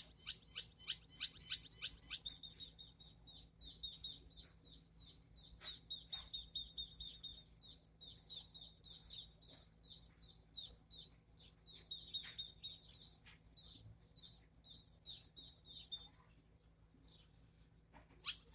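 Pet birds calling. Quick, evenly spaced high chirps, about four a second, give way after about two seconds to a fast, high chattering trill. The trill fades near the end, and the quick chirps start again at the very end.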